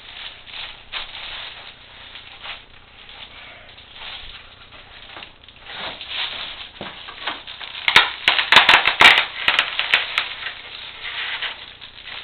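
Reflective foil bubble-wrap insulation crinkling and crackling as it is handled and pressed onto tape, with a loud flurry of sharp crackles about eight seconds in.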